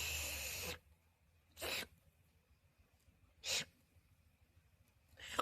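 A pet making a strange, breathy, sneeze-like sound as it licks, four times about two seconds apart; the first lasts nearly a second and the rest are shorter.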